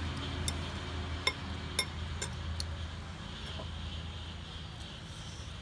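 Chopsticks and metal spoons clinking against ceramic noodle bowls while eating: several sharp clinks in the first three seconds, over a steady low hum.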